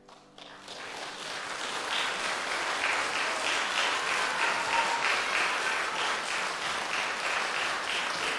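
Audience applauding, starting as the last piano chord dies away and swelling over the first couple of seconds into steady applause.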